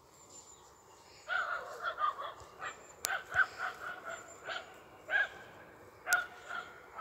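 A dog barking repeatedly in short, irregular barks that start about a second in, with two sharp clicks among them.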